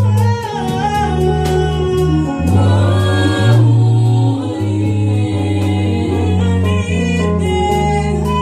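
Gospel worship music: voices singing over a band, with sustained bass notes and drums keeping a steady beat.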